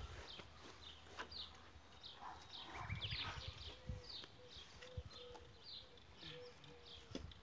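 Small birds chirping, with short falling notes repeating over and over, and a few low dull thumps as wooden-framed wire-mesh panels are carried and set down on grass.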